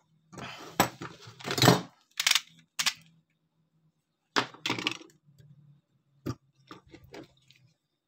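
Metal motor parts clinking, knocking and scraping as the steel-cored stator of a washing-machine spin-dryer motor is handled and turned over against its metal housing. The knocks come in irregular clusters, busiest in the first three seconds, with a few more near the middle and toward the end.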